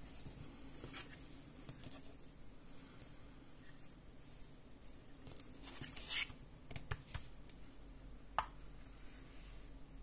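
Faint handling noise of plastic remote controls and silicone cases being rubbed, set down and fitted together on a mat, with scattered light clicks and taps and one sharper click near the end.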